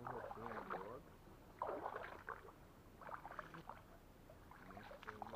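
Faint, indistinct talking in a few short stretches.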